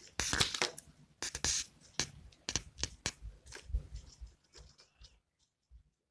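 Hands handling a small straw-and-skewer toy car with cork wheels on a hard tabletop: irregular taps, scrapes and rustles that stop about five seconds in.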